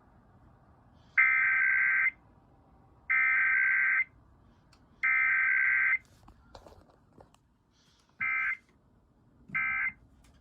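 Emergency Alert System SAME digital header played over radio: three loud, buzzing data bursts of about a second each, evenly spaced about two seconds apart. After a pause come two short bursts of the same tones, the length of the end-of-message code, with no long two-tone attention signal between them.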